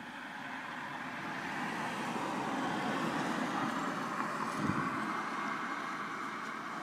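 A road vehicle passing by, its noise swelling to a peak about three seconds in and then fading away.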